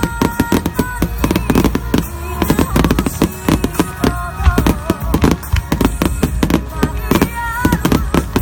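A fireworks finale barrage: many shells bursting in quick succession, several bangs a second, with a song with singing playing along.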